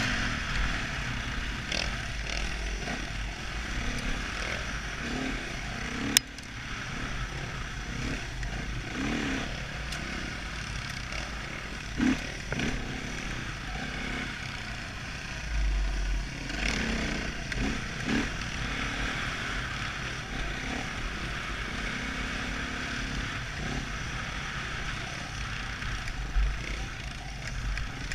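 Dirt bike engine heard from the rider's helmet camera, rising and falling in revs as the bike is ridden along a trail, with wind rushing over the microphone. There is one sharp click about six seconds in.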